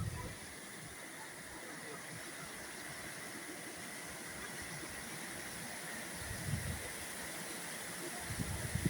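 Waterfall water rushing in a steady, even hiss, with a few brief low bumps on the microphone, once about six and a half seconds in and again near the end.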